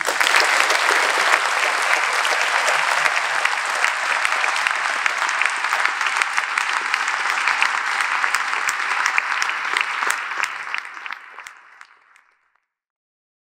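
Audience applauding: dense clapping that tapers off about eleven seconds in and stops.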